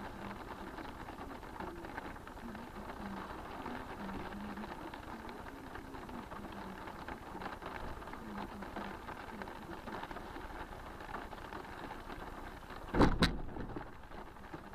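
Low, steady background noise inside a stationary car, picked up by its dashcam, then about thirteen seconds in a sudden loud knock and clatter as a reversing white Renault hatchback hits the car's front: a low-speed collision.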